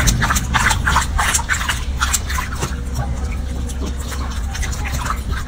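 Water splashing and sloshing in a washbasin as hands scrub a baby monkey's wet fur, in quick irregular splashes that grow fainter after about two seconds, over a steady low hum.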